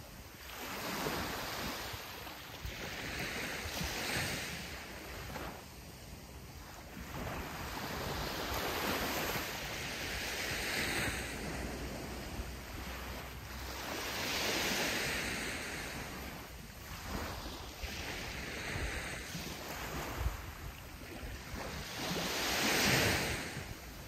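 Sea waves breaking on a sandy beach, the surf washing in and out. Louder breakers swell and fade every five seconds or so, and the loudest comes near the end.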